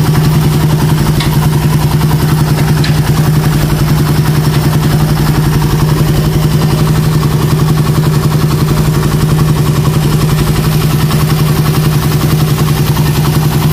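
Suzuki Satria F150's single-cylinder four-stroke engine idling steadily, just after a new manual cam chain tensioner has been fitted.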